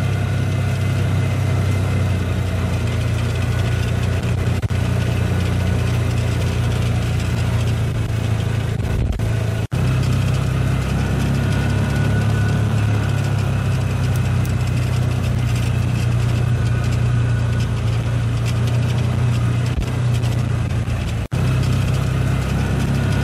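A vehicle's engine running steadily at low speed while it drives along, a constant low drone. The sound drops out briefly twice, about ten seconds in and near the end.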